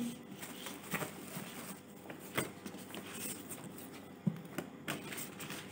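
Thick paper book dust jackets and hardback books being handled: soft paper rustling with a few light taps and clicks, two of them sharper.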